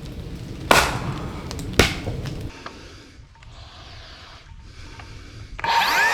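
Two sharp knocks on wood, the first about a second in and the second a second later; near the end a power tool's motor starts with a rising whine that settles into a steady running pitch.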